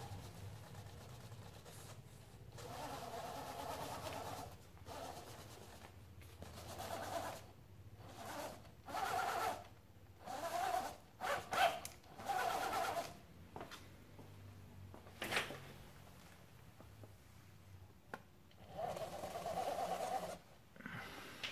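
Electric motor and geared drivetrain of an Axial RR10 Bomber 1/10-scale RC rock crawler whining in a series of short throttle bursts with pauses between, as it crawls over a step. A single sharp knock comes about fifteen seconds in.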